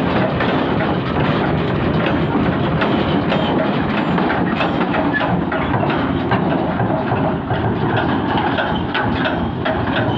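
Swaraj 744 XT tractor's three-cylinder diesel engine running steadily while it tows an empty steel trolley, with a constant clatter and rattle of loose metal.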